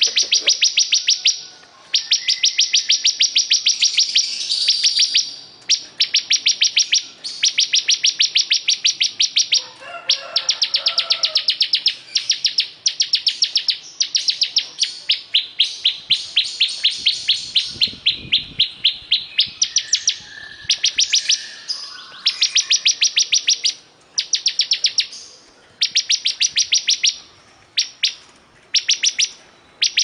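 Caged ciblek kristal (bar-winged prinia) singing loudly: fast rattling trills of evenly repeated high notes, about a dozen a second, in bursts of one to two seconds with short pauses between them, over and over.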